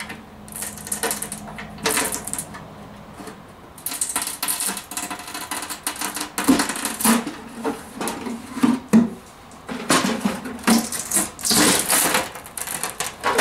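Plastic cover of a Ubiquiti AirFiber 24 being pried off its aluminium reflector dish with a screwdriver tip: irregular scraping, crackling and creaking as the silicone seal holding it gives way. The cover comes free near the end.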